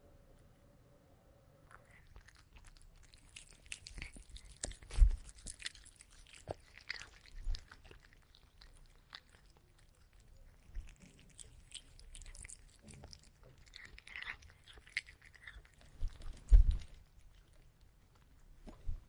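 Black cat chewing and crunching food from a plastic bowl at close range, a rapid run of small wet clicks and crackles. It starts about two seconds in and stops shortly before the end, with a few low thumps, the loudest about five seconds in and again near sixteen seconds.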